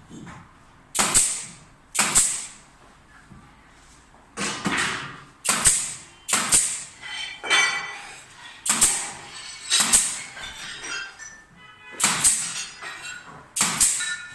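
A hammer striking about a dozen irregularly spaced blows, each a sharp knock with a short metallic ring.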